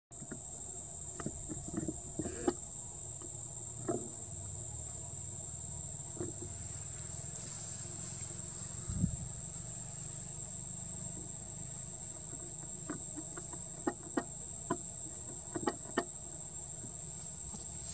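Steady high-pitched insect drone over a low rumble of outdoor ambience, with scattered soft clicks and taps, a cluster of them about two seconds in and another near the end.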